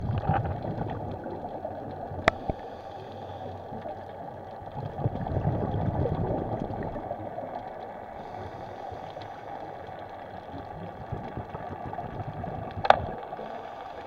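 Muffled water noise heard by a camera underwater, with a faint steady crackle, a louder rush about five seconds in, and two sharp clicks, one about two seconds in and one near the end.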